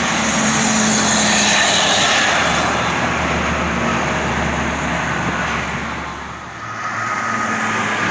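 Fast highway traffic passing close by: the tyre and engine noise of a passing vehicle swells in the first couple of seconds, then fades away, and the next vehicle approaches near the end.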